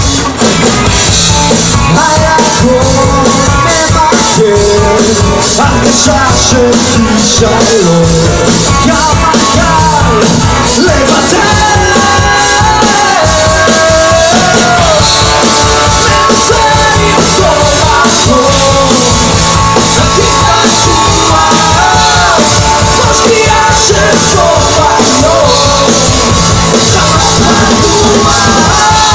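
Live rock band playing loud: drums, electric and acoustic guitars, with a man singing over them.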